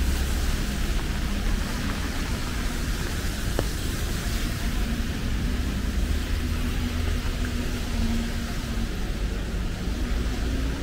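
Steady hiss of rain and passing traffic on a wet city street, with a low rumble underneath.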